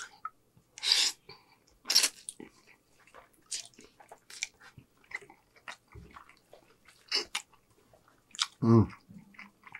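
Close-miked wet chewing and slurping of spaghetti and meatball: scattered smacks and clicks, with two stronger slurps about one and two seconds in. Near the end comes a short, loud vocal sound from the eater.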